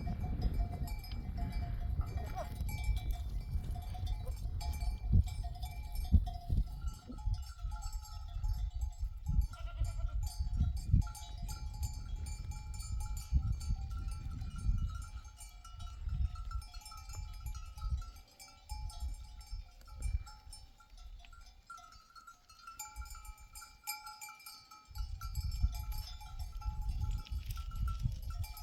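Bells on grazing sheep ringing and clinking, with a low rumble and scattered knocks underneath. The low rumble drops away for a few seconds past the middle.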